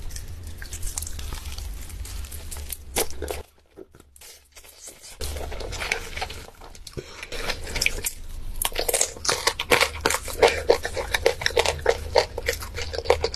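Close-miked eating of a fried chicken drumstick: biting and chewing with many crisp crunches and crackles. There is a short pause about three and a half seconds in, and the crunching grows denser and louder from about nine seconds in.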